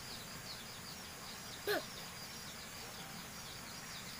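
Outdoor ambience with a steady run of short, high chirps repeating several times a second from a small creature, with one brief pitched call about one and a half seconds in.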